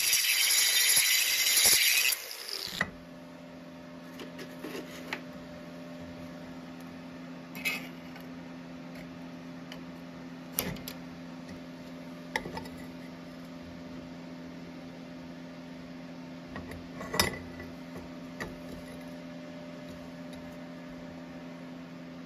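MIG welding arc crackling on a downhill vertical run, cutting off sharply about two seconds in. After that a steady low hum remains, with a few light metallic clinks now and then.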